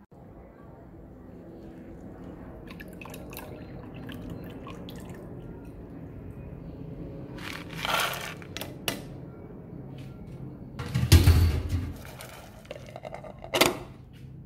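Soaking water draining and dripping from a plastic colander of soaked black beans as it is lifted from its bowl. Plastic knocks and clatter as the colander is handled and set down, the loudest a heavy knock about eleven seconds in and a shorter clack near the end.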